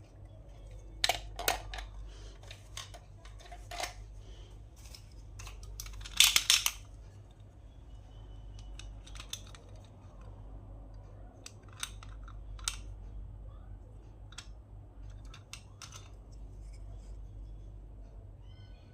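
Scattered clicks and snips of small plastic toys and packaging being handled during unboxing, with a louder cluster of crisp sounds about six seconds in, over a faint steady low hum.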